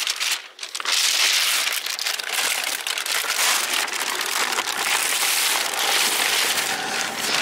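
Paper and plastic gift wrapping and bags rustling and crinkling steadily as a pile of presents is handled and gathered up.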